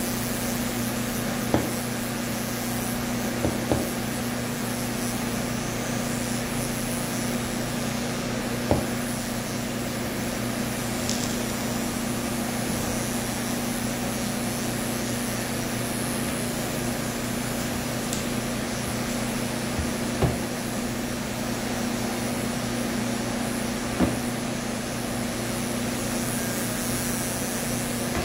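Electric animal clippers running steadily with a low buzz while cutting through matted cat fur, with a few short knocks scattered through.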